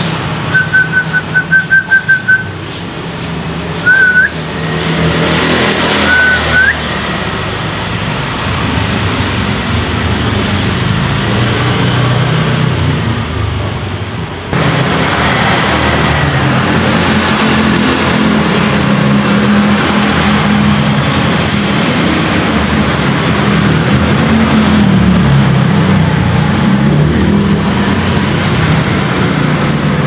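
Loud steady background noise with a low hum. Over it, in the first few seconds, comes a quick run of clear whistled notes on one pitch, then two short upward-curling whistles. The background changes abruptly about halfway through.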